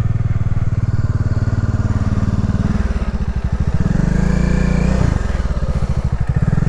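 Yamaha NMAX 155 scooter's single-cylinder engine running as it is ridden, its note rising briefly about four seconds in.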